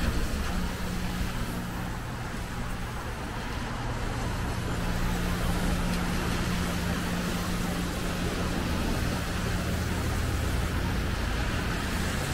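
Traffic on a rain-wet city street: a steady hiss of tyres on wet pavement over a low engine hum from passing vehicles.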